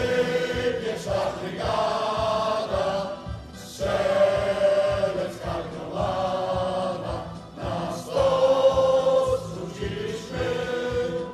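A choir singing a song in unison, with long held notes in phrases of one to two seconds and short breaths between them.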